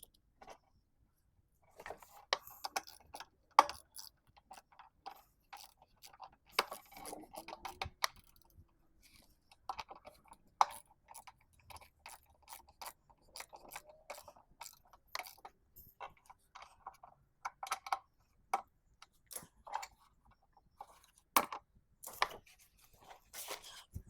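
Irregular clicks, taps and clatter of small metal parts and hand tools being handled during small-engine repair work on a lawn mower, with a few sharper knocks.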